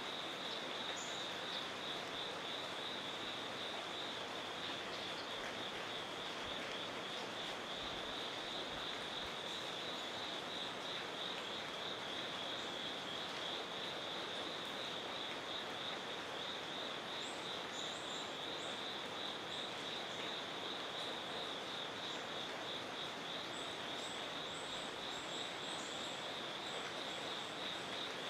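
Steady insect chorus: a continuous pulsing trill held at one high pitch, over an even outdoor hiss. A few faint, very high bird chips come in over it in the second half.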